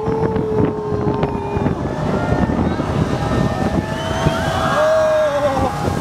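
Heavy, steady rush of a huge breaking wave and churning water, with wind buffeting the microphone. Long held tones that shift in pitch run over it, louder near the end.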